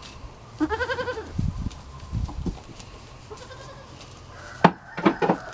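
A goat bleats once with a wavering, quavering call, followed by a few low thuds; a fainter short bleat comes near the middle, and a few sharp knocks sound near the end.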